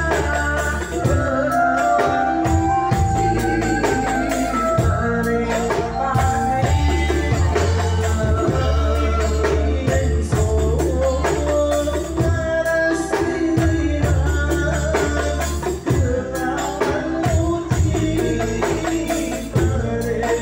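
Live Islamic hadrah band playing a steady beat: hand-held frame drums (rebana) with a drum kit, electric guitars and a sustained bass line, with a boy singing the melody into a microphone at the start.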